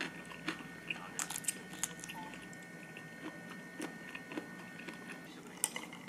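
A person chewing food, with a few sharp, crisp crunches.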